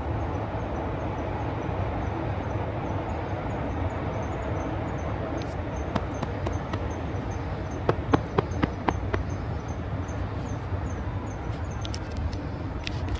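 Steady outdoor background hum, with a faint high chirp repeating about three times a second throughout, and a quick run of crisp clicks about eight seconds in.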